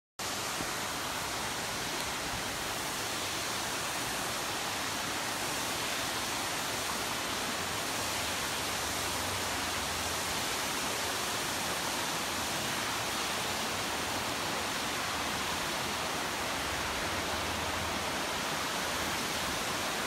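Steady, even rush of water falling at Nanataki waterfall.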